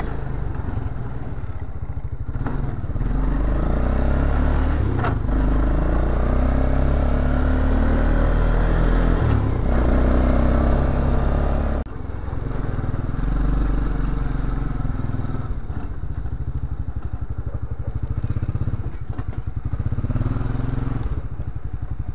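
1999 Arctic Cat 300 4x4 ATV's single-cylinder four-stroke engine running on a ride, the engine note rising and falling as it speeds up and eases off, with road rattle from the machine. There is a sudden brief drop about twelve seconds in, and it settles to a steadier, lower running near the end.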